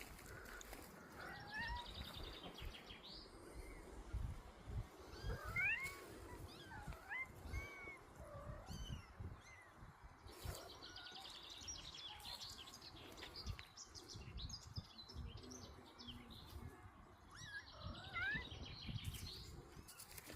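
Kittens mewing, many short high-pitched mews that rise and fall, scattered throughout.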